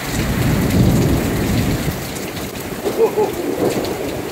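Heavy thunderstorm rain pouring down in sheets, with a low rumble of thunder swelling through the first couple of seconds.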